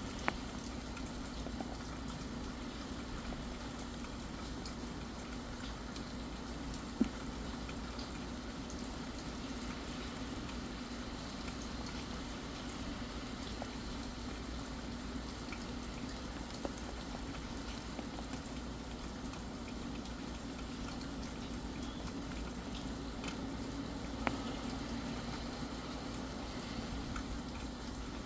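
Steady rain: an even hiss of falling water with scattered drip ticks, a few sharper single drips standing out, the loudest about seven seconds in.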